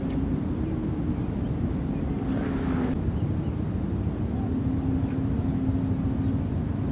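Steady low drone of a distant motor, a continuous hum over low rumbling, with a brief hiss about two and a half seconds in.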